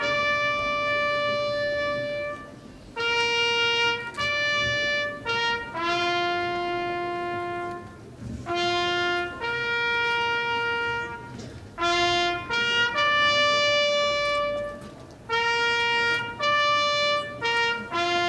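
Solo trumpet playing a slow military call. The notes are long and held, with short notes leading into them, and the phrases come in slow succession: a salute to the fallen during a wreath-laying.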